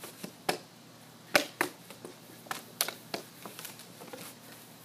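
A puppy knocking a plastic bowl about with its mouth and paws: irregular light plastic knocks and clacks, the sharpest about a second and a half in.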